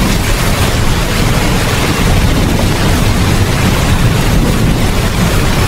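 Steady heavy rain, a dense even hiss with a deep continuous rumble underneath.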